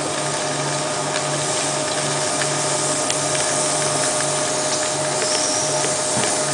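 Sawdust briquette press running: a steady mechanical hum and noise with a low pulsing beat about twice a second and scattered light clicks.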